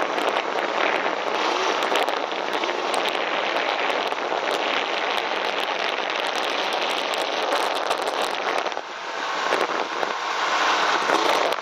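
Snowmobile under way through deep snow: engine and track noise mixed with wind on the microphone, a dense rushing sound that dips briefly about nine seconds in, then builds again.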